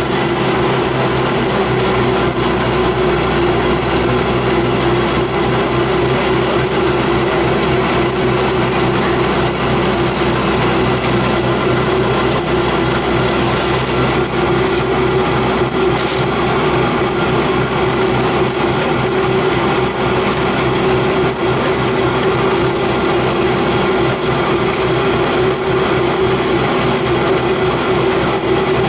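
Water-turbine-driven grist mill running and grinding grain as it feeds down to the stones: a loud, steady mechanical hum with light irregular clicking over it.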